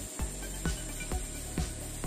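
Background music with a steady electronic beat, a little over two beats a second.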